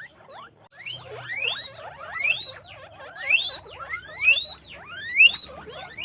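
Guinea pigs squealing (wheeking): repeated rising calls, several overlapping, starting about a second in, with the loudest coming about once a second and growing louder toward the end.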